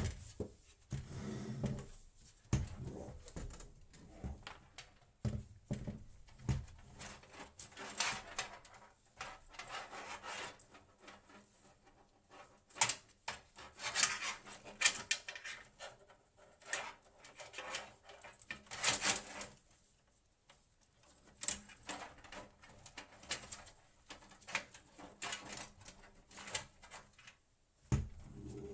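Irregular clicks, taps and scraping of hands handling hardware while fitting a hard drive into a desktop PC case.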